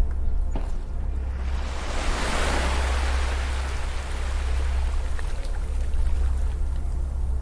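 A sea wave breaking and washing up the beach: a rush of surf that swells a little over a second in and fades away over the next few seconds, over a steady low rumble.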